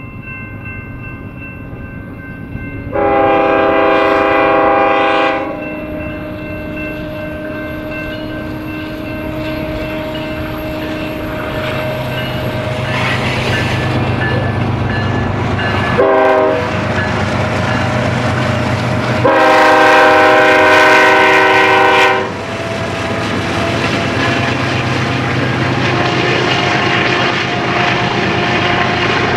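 BNSF diesel locomotive air horn sounding a long blast, a short blast, then another long blast as the train approaches a grade crossing. Between the blasts the locomotives' engine rumble grows steadily louder.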